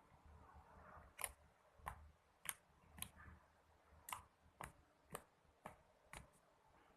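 Slime being squished and pressed, giving sharp little clicking pops of trapped air about every half second, starting about a second in.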